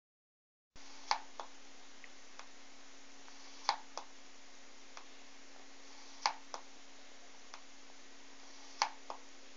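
Faulty Belinea 19-inch LCD monitor clicking in a repeating pattern: a sharp click followed by a softer one about every two and a half seconds, with fainter ticks between, over a steady hum and hiss.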